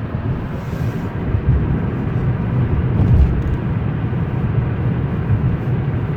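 Steady low rumble of road and engine noise inside the cabin of a 2012 Hyundai Elantra cruising at about 40 mph.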